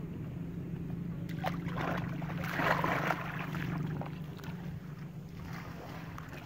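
Water splashing and sloshing in shallow muddy water, a run of splashes that builds to its loudest in the middle and then dies away, over a steady low hum.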